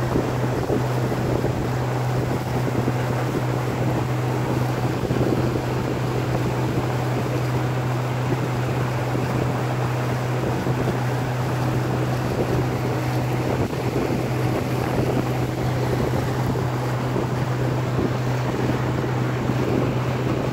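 A small boat's engine running steadily at cruising speed, a constant low drone under the hiss of wind on the microphone and water rushing past the hull.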